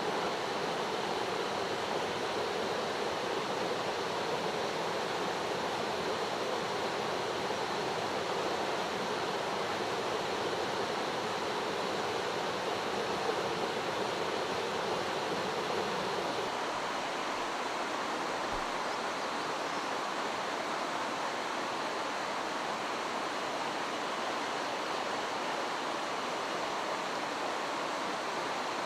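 Mountain stream running over rocks: a steady wash of rushing water that shifts slightly about two thirds of the way through.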